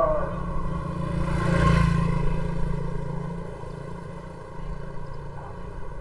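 A motor vehicle passing by: a low engine rumble swells to its loudest about two seconds in, then fades away.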